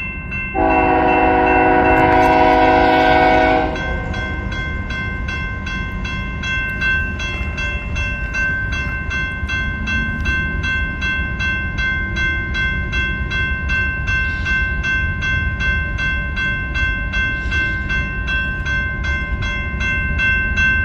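Locomotive horn on a BNSF train led by an SD40-2 sounds one chord, beginning about half a second in and lasting about three seconds. Under it a grade-crossing bell rings in an even, repeating pattern and the passing train gives a low rumble. Both continue after the horn stops.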